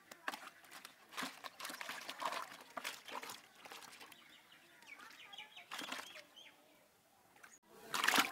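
Live fish splashing and thrashing in a plastic bucket of water as a hand drops them in and reaches among them: irregular splashes that come in bursts, loudest near the end.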